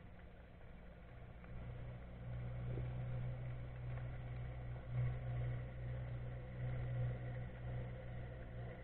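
Boat engine heard through the water: a low, steady hum that swells about a second and a half in and stays loud.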